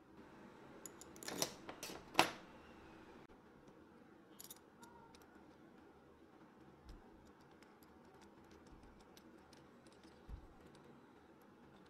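Metal clicks and clinks from handling a small steel clamp: a few sharp clinks in the first couple of seconds, the loudest just after two seconds, then faint scattered ticks as its threaded rod is turned with a bar through the nut.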